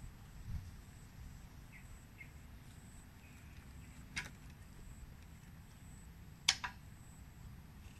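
Quiet outdoor background with a low steady rumble and two faint short chirps about two seconds in. Two sharp knocks stand out, one just after four seconds and a louder doubled one about six and a half seconds in.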